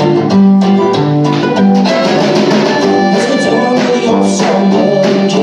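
Live acoustic band playing an instrumental passage: a strummed acoustic guitar with mandolin and a drum kit keeping a steady beat.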